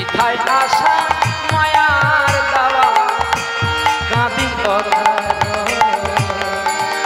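Bengali devotional kirtan: a man sings over a harmonium, while a khol barrel drum plays a steady pattern of deep strokes.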